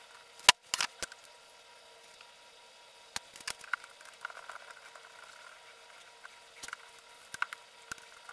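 Scattered short, sharp clicks and clacks of pliers working at a circuit board in an active speaker's back panel, as the board's connectors and fixings are worked loose for removal. The loudest click comes about half a second in, with a quick cluster just after it and a few lighter ticks later on.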